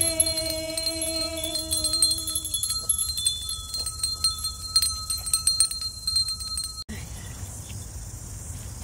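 Light tinkling chimes, many quick strikes and ringing high notes, with a held sung tone that fades out about two and a half seconds in. The sound cuts off abruptly near the end.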